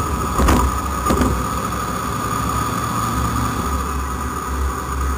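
Low road and wind rumble from a camera mounted on a car's bumper as the car rolls across a parking lot, with a steady high tone throughout. Two short knocks come about half a second and just over a second in.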